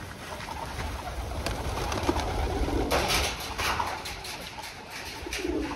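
Domestic pigeons cooing, with a few short low coos and a couple of brief rustles about three seconds in.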